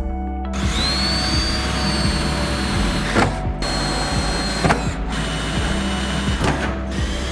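Cordless drill running at speed, its twist bit cutting through the sheet-steel top of a pickup's bed rail with a high whine. The drilling breaks off briefly about three seconds in and again around five and seven seconds.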